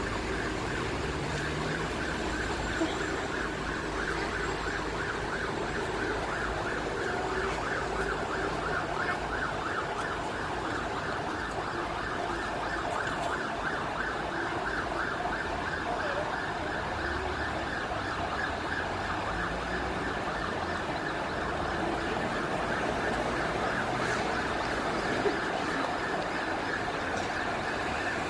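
Street ambience: traffic rumbling low, under a steady, rapidly pulsing high buzz that runs on without a break.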